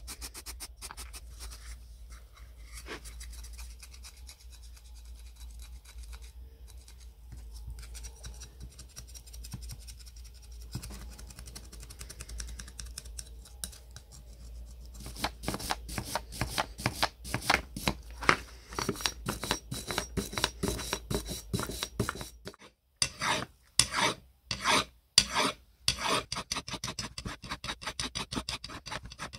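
A brush scrubbing the metal motor housing of old electric sheet metal shears, in rapid back-and-forth scraping strokes. The strokes get louder and closer together about halfway through, with a few short breaks near the end.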